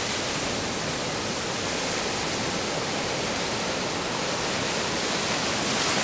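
Breaking surf: a steady rushing hiss of whitewater, which swells near the end as foam washes up close.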